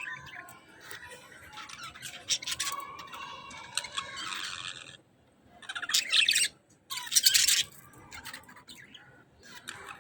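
A flock of budgerigars chirping and chattering, with two loud, harsh screeches about six and seven seconds in.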